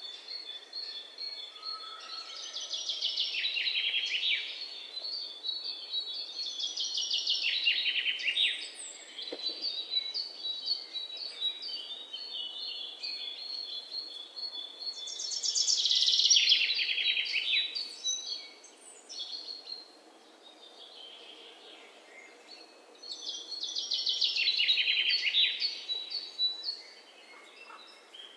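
Birdsong: several bursts of fast chirping trills over a faint steady hiss, the loudest about halfway through.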